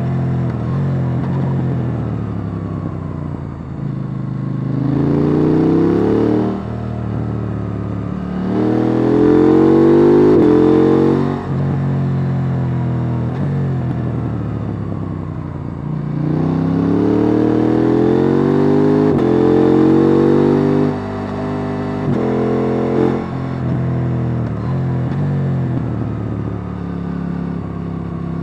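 KTM 890 Duke R's 890 cc parallel-twin engine with the stock exhaust, heard on board, revving up hard several times through the gears and dropping back off the throttle between rises.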